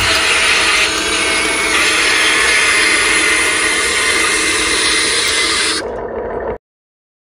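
RC dump truck's electric motor and gears running with a steady mechanical whir, cutting off abruptly about six and a half seconds in.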